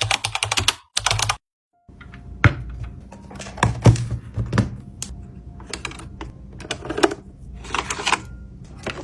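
Hard plastic brush pens and their packaging being handled: a rapid run of rattling clicks, a second short burst, then after a break, scattered taps and knocks over a low hum.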